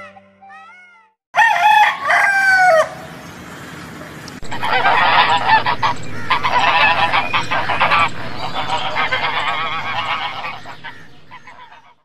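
A loud call lasting about a second and a half, a little over a second in. From about four seconds in, a flock of domestic geese honks and cackles without a break, fading near the end.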